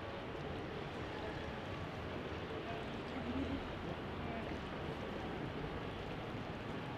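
Steady city ambience on a riverbank: a continuous hum of traffic with faint voices, swelling briefly about three seconds in.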